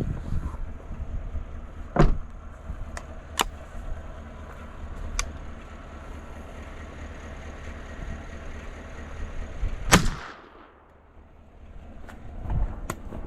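A vehicle's engine idling with a few sharp clicks, then a single shot from a 20-gauge single-shot break-action shotgun about ten seconds in, the loudest sound, ringing out briefly.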